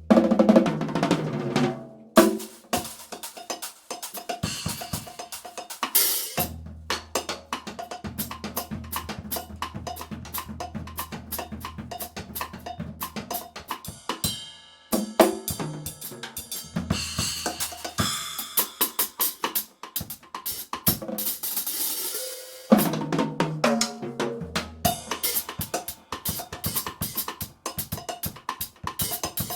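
Drum kit being played in a fast, busy groove of snare, bass drum, hi-hat and cymbal strokes, with a brief lull about halfway through.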